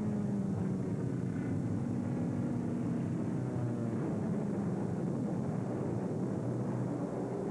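Propeller aircraft engines droning over a continuous rumble, their pitch gliding slowly up and down as the planes pass.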